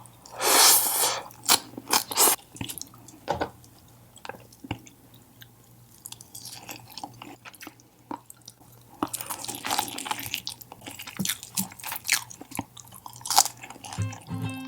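Close-miked eating: a loud crunchy bite, then irregular chewing, with a denser run of chewing and crunching in the second half.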